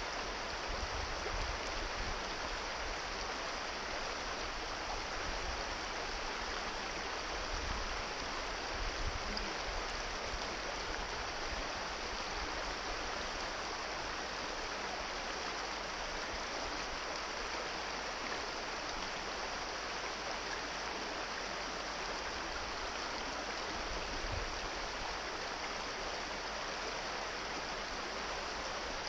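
Shallow rocky brook running over stones in riffles: a steady, even rushing of water, with a few brief low rumbles.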